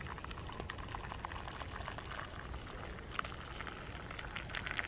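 Coffee being poured from an aluminium camping percolator into an enamel mug, a steady splashing stream as the mug fills.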